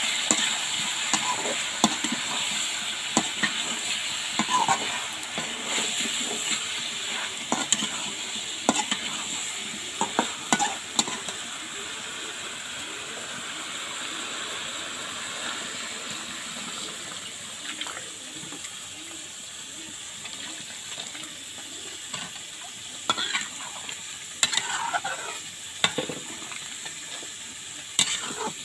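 Wax gourd pieces sizzling in spiced oil in a metal pan, with a spatula stirring and scraping against the pan. The scrapes and clicks come thickly in the first half, thin out in the middle, and pick up again near the end.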